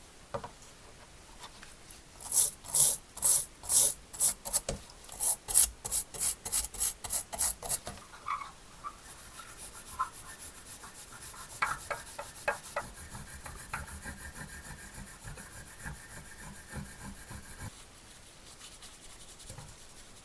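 Hand-worked rasping strokes on a workpiece: about fifteen strong back-and-forth strokes, quickening to nearly three a second, then a quieter steady rubbing with a few short squeaks.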